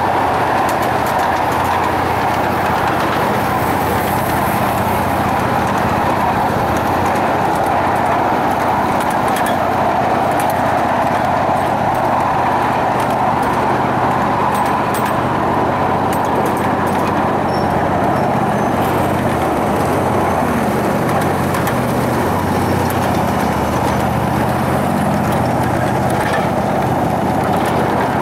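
A 7.5-inch gauge ride-on miniature train running along its track, heard from a passenger car near the back: a steady rumble of wheels on rail with a low, even hum from the locomotive.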